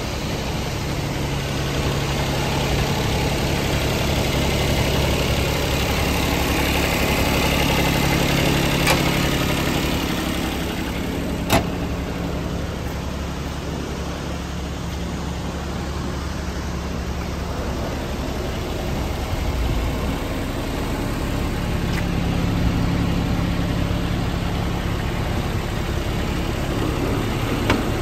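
JCB 16C-1 mini excavator's diesel engine idling steadily, swelling a little twice, with a sharp click about eleven seconds in.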